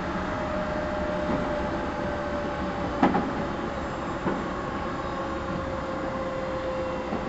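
Running sound inside a JR 211 series 5000 electric train (motor car KuMoHa 211-5009) in motion: steady rumble of wheels on rail with a thin motor-and-gear whine sliding slowly down in pitch. A sharp knock comes about three seconds in, and a smaller one about a second later.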